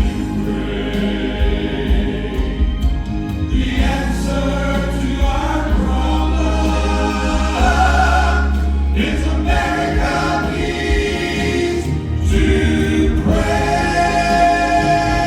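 Southern gospel quartet singing in harmony over instrumental accompaniment with a steady bass line.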